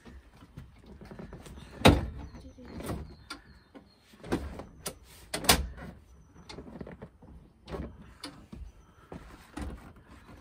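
Van front seat on a swivel plate being turned and jiggled round, giving irregular clunks and knocks, the loudest about 2 seconds in and again about 5 seconds in.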